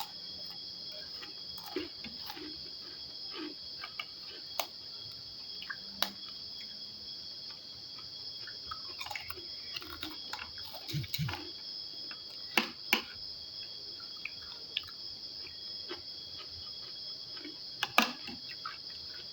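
Eating sounds, with chewing of fried rice and raw shallots and scattered sharp clicks, a few of them louder, over a steady high trill of crickets.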